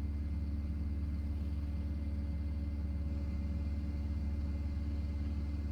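A steady low hum with a faint constant tone above it, unchanging throughout.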